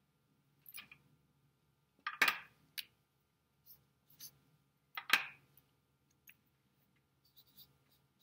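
Felt-tip markers being uncapped and capped: a few sharp clicks, the two loudest about two and five seconds in. Near the end, a marker scratches faintly on chart paper.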